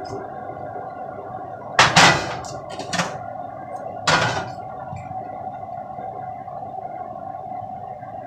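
Range hood exhaust fan humming steadily, with loud metallic clatters of a frying pan and utensil being handled on the stove about two, three and four seconds in.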